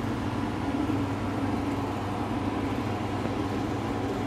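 A steady mechanical hum with a constant low drone and an even hiss, unchanging throughout.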